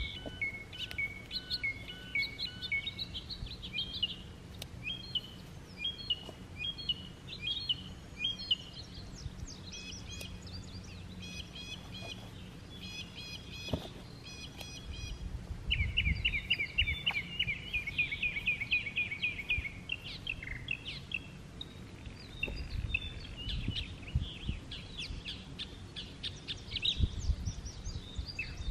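Several songbirds singing and calling over one another in short whistled and chirped phrases. Partway through, a fast, even trill runs for about four seconds. A low rumble comes and goes beneath the birdsong.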